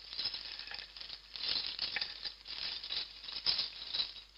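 Loose LEGO pieces clattering as a hand rummages through them: a dense, irregular run of small plastic clicks.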